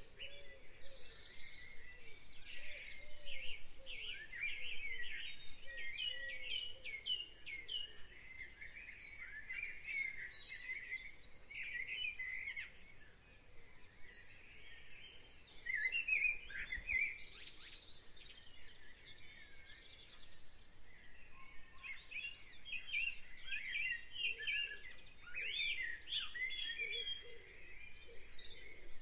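Several songbirds singing at once in a spring chorus: many overlapping chirps, sweeping notes and fast trills, without a break.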